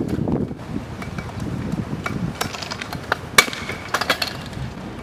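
Stunt scooter wheels rolling on asphalt, then a run of sharp clatters and knocks as the scooter's deck and wheels hit the ground when a flip trick is landed, the loudest about three and a half seconds in.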